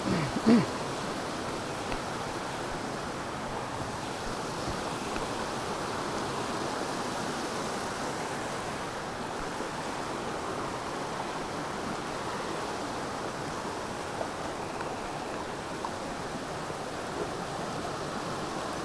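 Steady rush of a rocky brook pouring over small falls and rapids. About half a second in there is a brief, loud voice-like sound.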